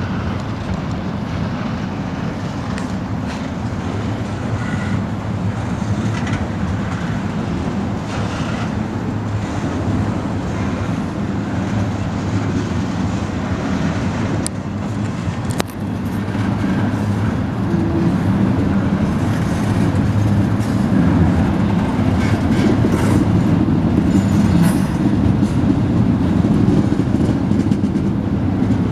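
Double-stack intermodal freight train's well cars rolling past, a steady rumble of steel wheels on rail with scattered clicks, growing a little louder after the middle.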